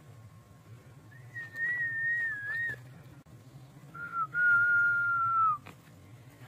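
A person whistling: one long note that wavers in pitch, then after a pause a short note and a longer, steady, lower note that dips at its end.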